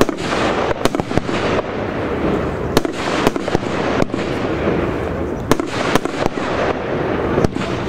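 A firework battery cake (Heron Cake 456) firing in sequence: a continuous dense rush of launches and bursts, with sharp bangs at irregular intervals, roughly one a second.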